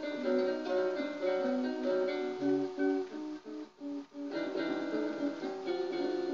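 Improvised experimental free-jazz music: a run of plucked string notes, mostly guitar-like, with a short pause a little past the middle before the notes pick up again.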